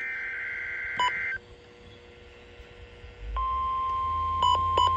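NOAA Weather Radio SAME alert tones: a burst of warbling digital data tones ends about a second in. After a short pause a single steady, loud alert tone starts a little past three seconds in, with two short beeps over it near the end.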